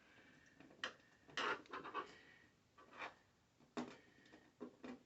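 Light handling noises: a handful of short clicks and taps with brief scraping and rubbing, from hands working with small screws and parts.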